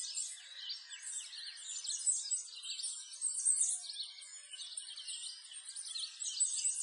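A dense chorus of many small birds chirping continuously, with short, quick, high-pitched calls overlapping throughout.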